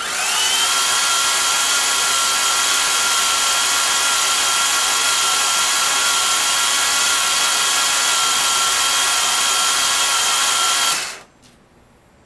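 Starter motor cranking a rebuilt 3.0 L dual-overhead-cam V6 with its spark plugs out, a steady whine that rises as it spins up in the first second and stops abruptly about eleven seconds in. The engine is being spun on the starter to prime its oil system and build oil pressure.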